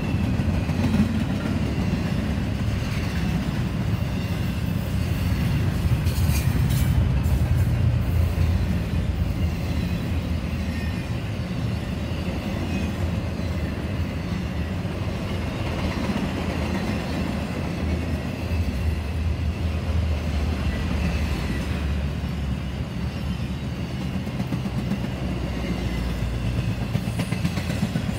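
CSX double-stack intermodal freight cars rolling past close by: a steady low rumble of steel wheels on rail, with a few sharp clicks about six seconds in.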